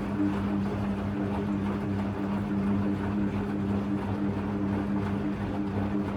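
Hoover Electra 535 Dual Spin washing machine's motor running with a steady electrical hum during the rinse stages.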